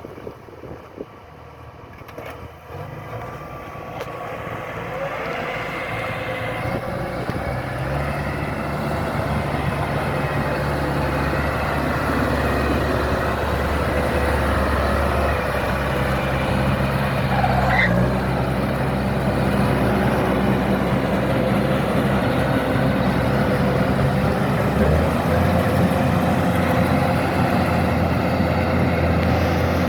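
Kubota combine rice harvester running: its engine and machinery hum and whine steadily, growing louder over the first dozen seconds, then holding level.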